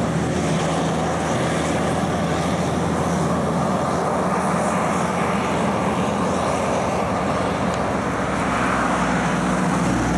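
DAF truck's diesel engine and tyres as the truck and semi-trailer drive away along the highway: a steady engine drone with road noise, with other traffic passing.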